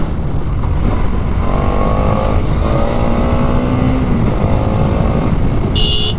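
Bajaj Pulsar NS200's single-cylinder engine running at road speed under heavy wind rush on a helmet-mounted mic, its pitch drifting slightly as the throttle changes. A brief horn beep sounds near the end.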